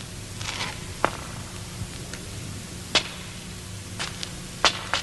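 Film sound effects: a short swish about half a second in, then a handful of sharp, irregularly spaced clicks and knocks over a steady low hum and hiss from the soundtrack.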